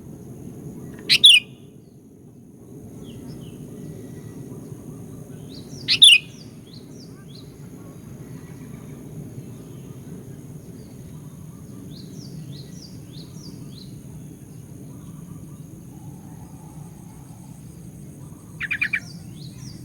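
Sooty-headed bulbul calls: a loud, sharp call about a second in and another near six seconds, faint chirps around twelve seconds, and a quick stuttered call near the end, over a steady low background noise.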